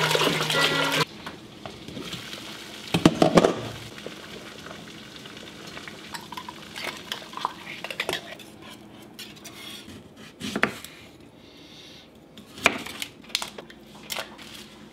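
Water pouring from a jug into a stainless steel stockpot, cutting off suddenly about a second in. Then a brief clatter, followed by scattered light knocks, clinks and small splashes as citrus halves are squeezed and dropped into the water.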